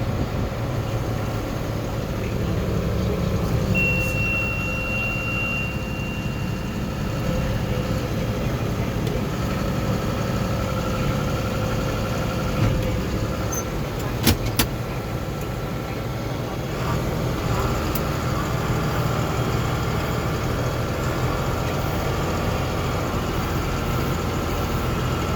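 Tractor engine running steadily while pulling a round baler through hay. A thin high steady tone sounds for about three seconds starting about four seconds in, and two sharp clicks come about halfway through.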